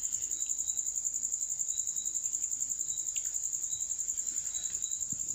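Crickets chirping: a steady high-pitched trill with a fast, even pulse.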